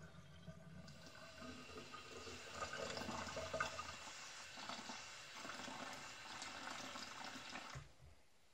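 Kitchen mixer tap running into a stainless steel measuring cup, filling it with water. The flow starts about a second in and stops near the end.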